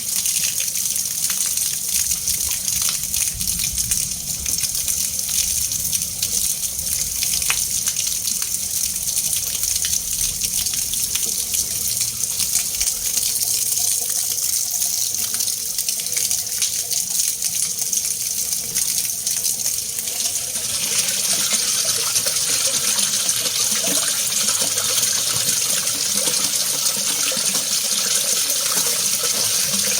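Water being mixed, a steady rushing, splashing noise that grows fuller and louder about two-thirds of the way through.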